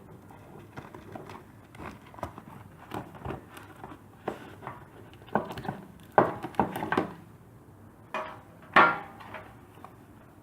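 A cardboard box and its packaging being handled as a tablet is slid out: scattered taps, scrapes and rustles, with a few louder crinkles and scrapes about halfway through and near the end.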